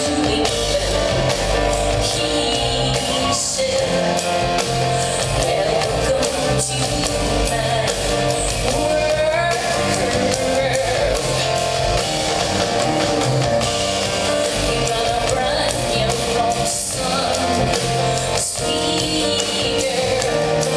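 Live rock concert music: a woman singing over a full band, with a steady beat in the bass.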